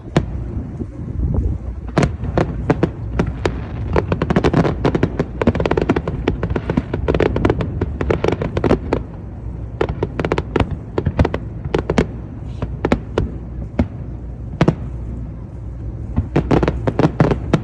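Fireworks display: a rapid series of sharp bangs and crackles from bursting aerial shells over a low rumble. The bursts come thick and fast for the first half, thin out, then pick up again in a quick flurry near the end.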